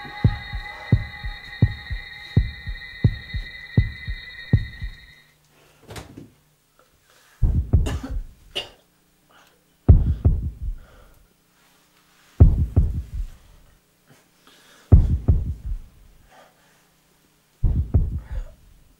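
Heartbeat sound effect: quick, regular thumps, about two a second, under a held musical chord that cuts off about five seconds in. The beat then slows to a heavy thud every two and a half seconds over a low hum: the failing heartbeat of a starving man.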